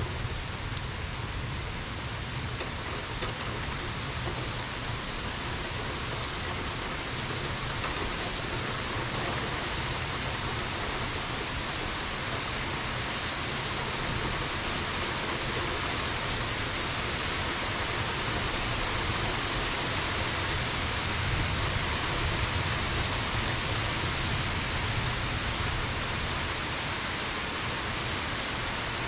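Rain falling steadily, a dense even hiss with scattered sharp ticks of drops striking close by.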